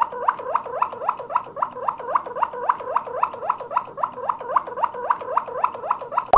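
Waterslager canary singing the klokkende tour: a rapid, even run of short rising notes, about five a second.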